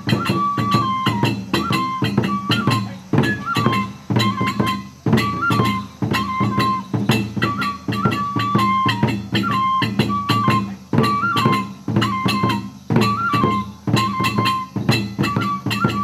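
Kagura accompaniment: a bamboo flute plays a stepping, repeating melody over a dense, steady rhythm of strikes on a small hand-held brass cymbal.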